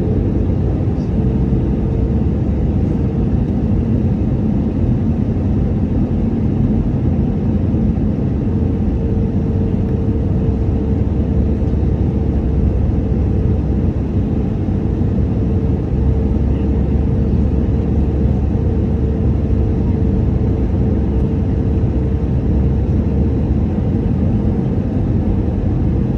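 Airbus A320neo jet engines running, a steady low rumble with a constant humming tone over it.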